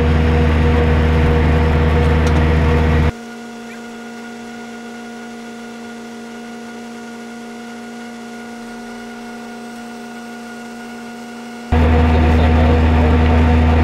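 Well-drilling rig truck's engine running steadily at idle, a loud low drone. About three seconds in it drops abruptly to a much quieter steady hum with a few held tones, and it comes back at full level near the end.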